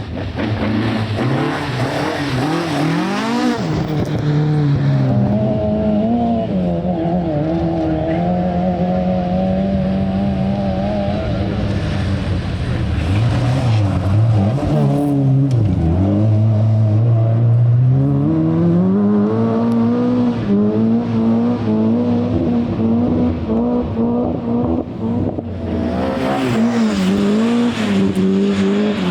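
Rally car engine driven hard on a stage, the revs climbing and dropping again and again through gear changes and corners, with a steadier stretch past the middle.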